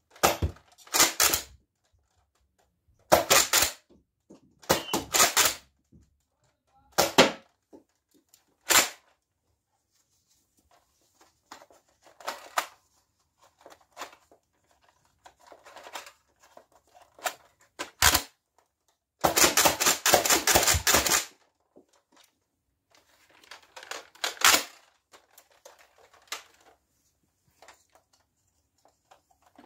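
Nerf Mega foam-dart blaster being primed and fired repeatedly: a string of loud, sharp pops and plastic clacks. About two-thirds of the way through comes a run of rapid clicking lasting about two seconds.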